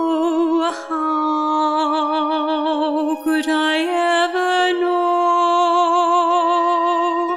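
A woman's voice singing long held notes with a wide vibrato, breaking briefly for breath twice, over a soft sustained accompaniment.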